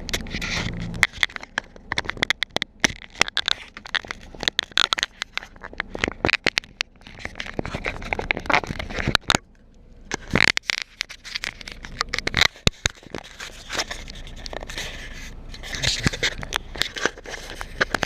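Irregular crackling, scraping and clicking noises at close range, over a low steady hum, with a short lull about halfway through.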